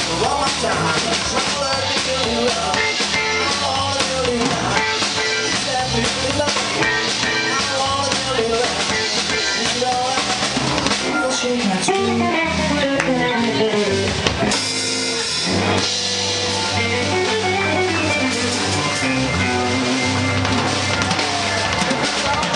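Live jump-blues band playing: an electric guitar lead with bent notes over drum kit and bass. The low end drops out briefly about two-thirds of the way through.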